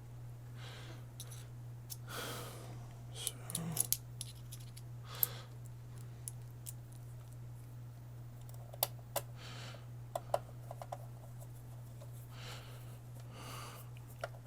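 Small screws and a screwdriver being handled during reassembly of an Xbox One S console: scattered sharp clicks and light metallic taps, with a few brief scraping sounds. A steady low hum runs underneath.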